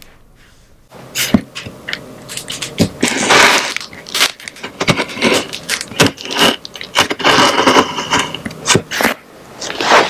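A knife blade scraping and slicing along the packing tape on a cardboard shipping box, with sharp taps and crackles from the cardboard and tape. It starts about a second in after a near-quiet start.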